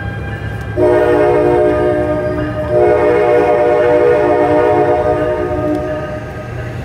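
Long Island Rail Road M7 electric train sounding its horn over the low rumble of the train: a loud chord of several tones, blown twice, a shorter blast about a second in and then a longer one that tapers off.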